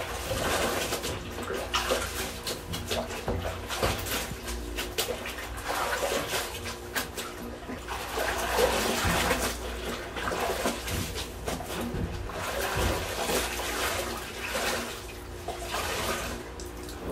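Wet clothes being scrubbed by hand, rubbed fabric against fabric in a basin of water, with irregular sloshing and splashing as the garment is lifted and worked.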